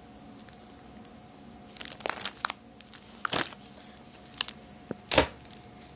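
Plastic binder page sleeves crinkling as binder pages are flipped and handled, in a few short, separate crackles and knocks, the loudest about five seconds in.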